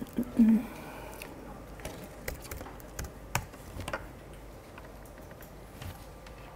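Laptop keyboard being typed on: a scatter of short key clicks over the first few seconds, then only a few isolated clicks. A brief low voice sound comes just after the start.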